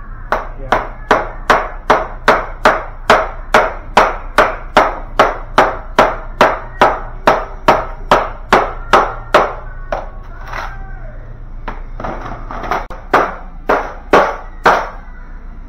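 Block ice in a plastic tray being struck and broken up with a metal tool. There is a steady run of sharp blows, about two and a half a second for some nine seconds, then a few scattered blows.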